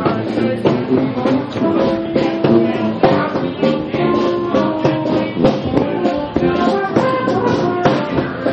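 Background music with a steady drum beat and held instrument notes.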